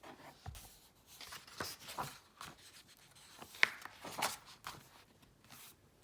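Paper rustling and handling noises from a picture book's pages being turned, with a sharp click about three and a half seconds in.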